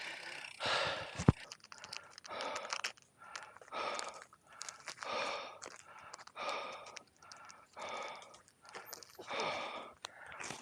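A rider's heavy breathing as he catches his breath after a hard climb, with long breaths about every second and a half. A single sharp knock about a second in.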